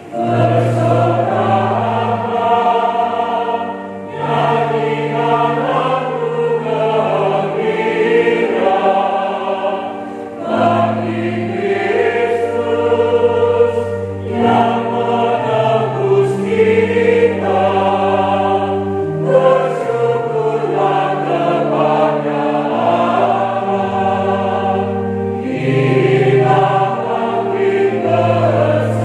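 Mixed church choir singing in parts, with brief breaths between phrases about four and ten seconds in.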